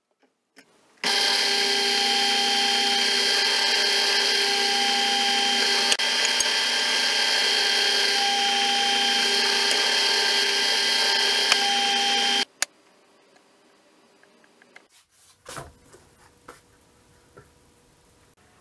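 Benchtop drill press motor running steadily while it drills holes through a thin aluminium strip on a particleboard plate. It starts about a second in and cuts off suddenly about two-thirds of the way through, followed by a few faint clicks and knocks.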